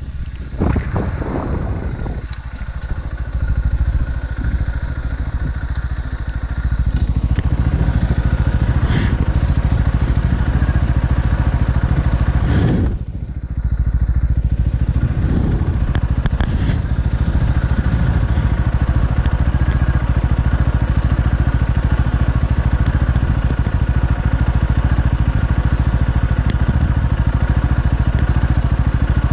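Motron Revolver 125 motorcycle engine running steadily, with a short drop in the sound about thirteen seconds in.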